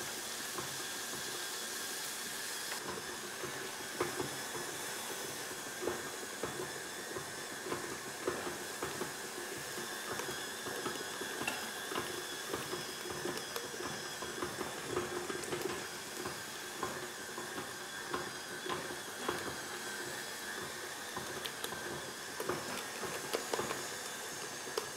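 Merguez sausages frying in oil in a frying pan: a steady sizzle with many small pops and crackles.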